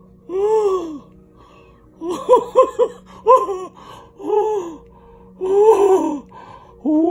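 A man's wordless moans and gasps, about six drawn-out cries that rise and fall in pitch, with a quick run of short breathy cries about two seconds in, made while he is deep in a salvia trip.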